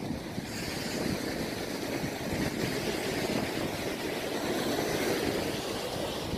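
Surf breaking and washing over a rocky coral shore, a steady rushing noise with wind buffeting the microphone; the hiss of the wash swells about half a second in.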